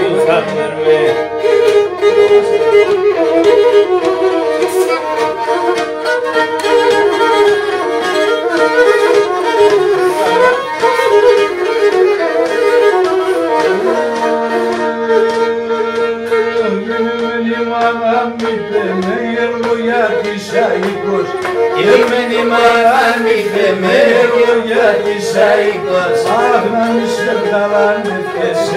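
Pontic lyra (kemenche) bowed in a traditional Pontic folk tune, the melody moving over a steady lower note that is held from about halfway through.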